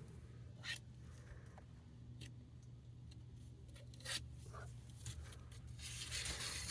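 A few faint, short scrapes and clicks of hands handling the work, spaced a second or two apart over a low steady hum.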